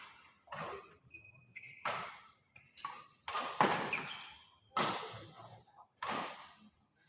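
Badminton rally: rackets striking the shuttlecock about seven times at uneven intervals, each sharp hit trailing off in the hall's echo.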